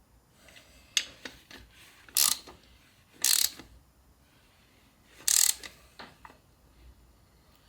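Ratchet spanner clicking in three short bursts, with a sharp tool click before them, as M6 bolts are run into new thread inserts and tightened.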